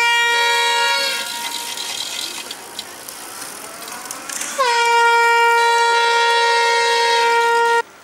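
Two long blasts of an air horn, each dipping in pitch as it starts: the first ends about a second in, the second starts past the middle, holds steady for about three seconds and cuts off suddenly. Between them, quieter rolling noise as handbikes pass.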